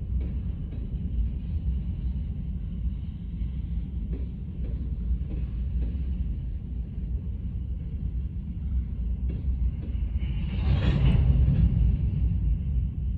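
Manifest freight train cars rolling past: a steady low rumble of wheels on rail with a few faint clicks, swelling to a louder rush about ten seconds in.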